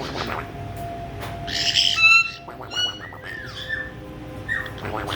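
Caique parrots calling: a harsh squawk about a second and a half in, the loudest sound, followed by a run of short whistles and downward-sliding whistled calls.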